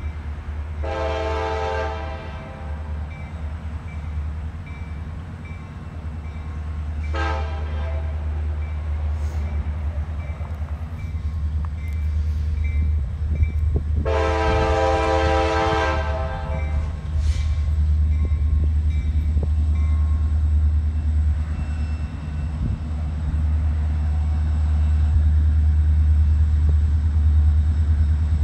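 Diesel freight locomotive's horn sounding three times: a long blast, a short one about seven seconds in, then another long blast about fourteen seconds in. Under it runs the steady low rumble of the approaching train, which grows louder near the end.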